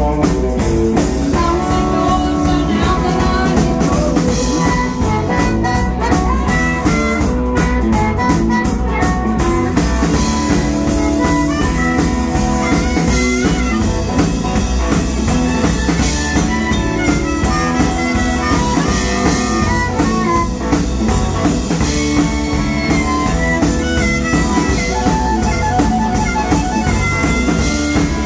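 Live blues band playing an instrumental break: electric guitars and a drum kit, with a harmonica played close into a microphone.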